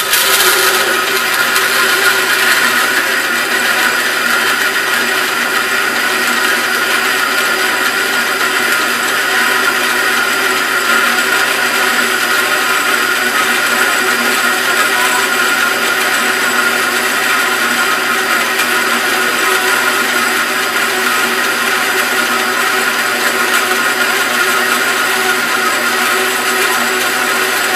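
A 14-inch wood-cutting bandsaw converted for metal, its blade slowed to about 200 feet per minute, running steadily while its 10-tooth bimetal blade cuts through a 1/4-inch mild steel bar under light hand pressure. The sound is a steady, even machine drone with several held tones.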